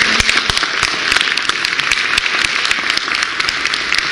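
Audience applauding: many hands clapping at once, steady and dense throughout.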